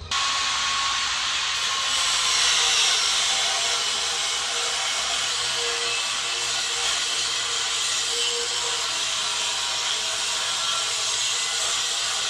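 A power tool running steadily under load on metal, a continuous high-pitched grinding hiss that starts abruptly and keeps on without a break.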